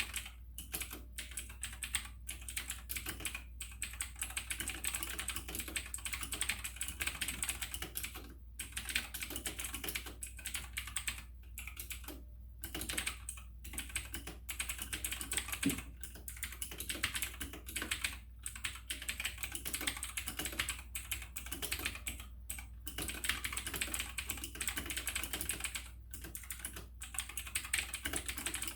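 AUKEY tenkeyless mechanical keyboard with Outemu Blue clicky switches being typed on fast and continuously, a dense run of clicking keystrokes with a few brief pauses.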